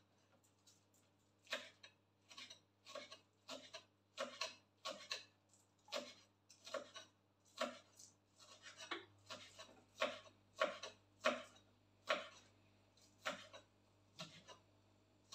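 Kitchen knife chopping fresh herbs on a wooden cutting board: sharp, uneven knocks of the blade on the board at about two a second, starting about a second and a half in.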